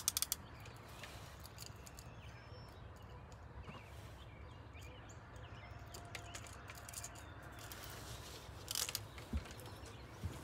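A trolling reel's clicker ratchets in a quick run of clicks right at the start, then a quiet stretch with faint bird chirps, and a short rattle of clicks from the reel about nine seconds in.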